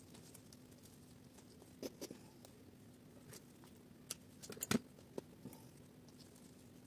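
Hand pruning shears snipping the tips off bougainvillea stems: a few scattered sharp clicks, the loudest a quick cluster a little past halfway, over a faint steady hum.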